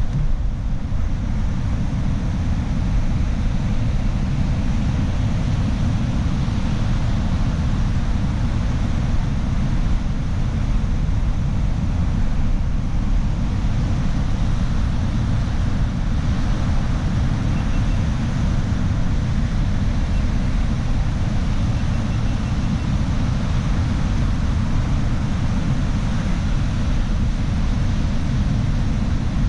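Steady rumble and hiss of a vehicle driving on, with road and wind noise and no change in pace.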